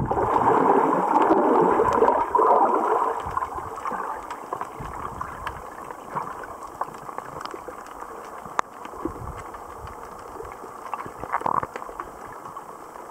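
Underwater recording from a moving camera: water gurgling loudly past the microphone for the first three seconds or so, then fading to a quiet hiss with scattered sharp clicks and snaps.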